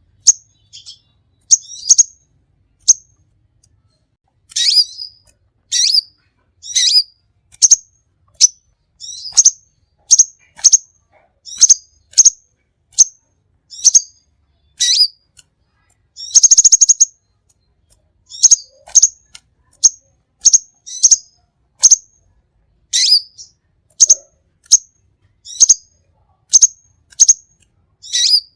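A songbird singing a string of short, sharp, high chirps, about one or two a second with short pauses between, and one longer rattling trill around the middle.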